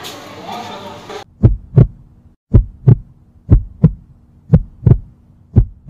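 Stethoscope heartbeat sound effect: five lub-dub double beats, about one a second, over a faint steady hum. It starts about a second in after a sudden cut from classroom noise.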